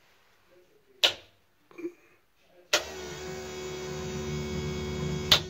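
Toggle switches clicking on one at a time on a race car's switch panel. About three seconds in, a click brings in the steady electric hum of the car's fuel pumps (in-tank pusher pumps feeding a surge tank and main pump). The hum grows slightly, and another switch clicks near the end.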